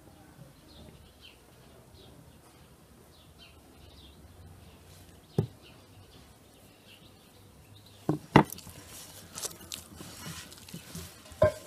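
A metal spoon knocking sharply against a glass mixing bowl a few times as bread dough is stirred, followed by softer rustling as the dough is worked by hand. Faint bird chirps sound in the background.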